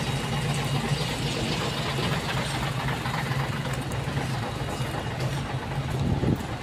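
Heavy truck's diesel engine idling, a steady low drone under a wash of broad noise.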